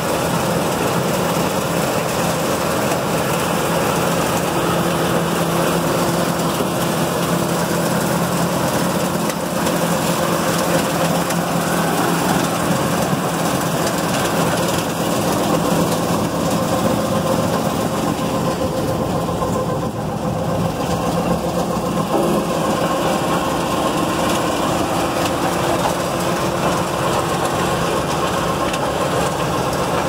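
Astec ProSizer 3600 portable plant crushing recycled asphalt pavement. Its horizontal-shaft impact crusher, vibrating feeder, high-frequency screen and conveyors run together as a steady, unbroken mechanical din.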